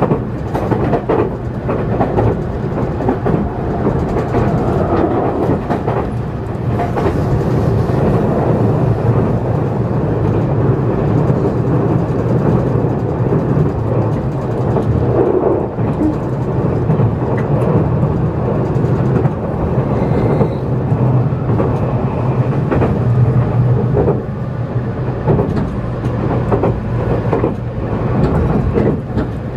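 Running noise of a JR Kyushu 783 series electric limited express at speed, heard inside the passenger car: a steady low rumble of wheels on rails and car body, with occasional faint clicks.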